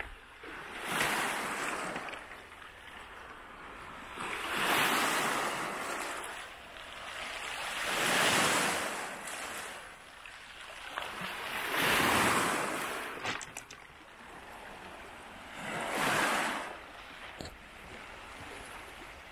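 Small lake waves washing onto a stony pebble beach and drawing back, swelling and fading about every four seconds, five times in all.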